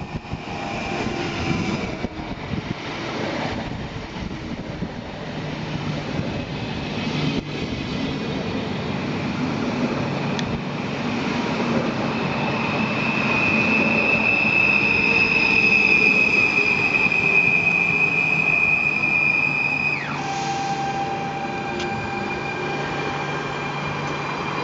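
PKP Intercity electric multiple unit running in along the platform, with a steady high-pitched squeal that grows louder for several seconds over the rumble of the train. About twenty seconds in, the squeal drops sharply in pitch and the sound becomes quieter.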